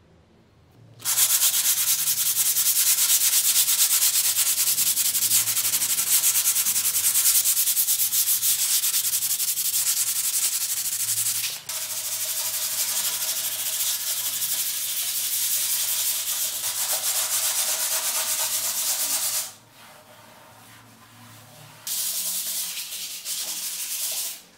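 Hand sanding with P220 aluminium-oxide waterproof sandpaper over a dried cement wall-putty relief: a steady, fast scratchy rubbing. It breaks off for a moment near the middle and eases off about three-quarters of the way through, then a shorter stretch of rubbing follows near the end.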